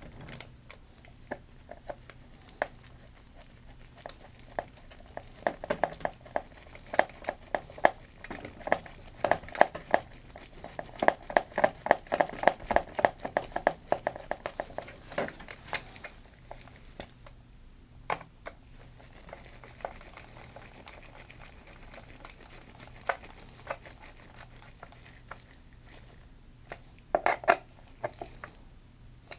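Small metal screws and parts being handled and driven into an aluminium servo mount by hand: a busy run of quick light clicks and rattles in the middle, then scattered single clicks.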